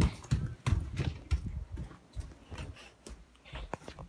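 Footsteps on a floor: a quick, irregular run of soft thuds and knocks, about three a second at first, then sparser and fainter after about two seconds.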